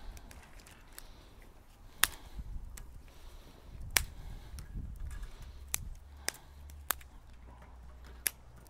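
Dry twigs snapping by hand as kindling is fed into a small steel folding firebox stove: about six sharp cracks at uneven intervals, the loudest about four seconds in, over a faint low rumble.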